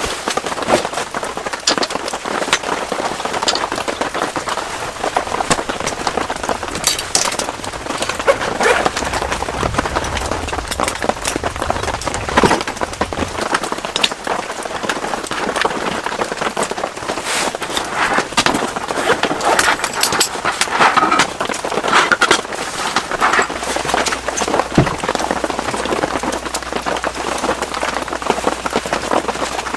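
Rain falling steadily on a tent, with many sharp drop taps throughout.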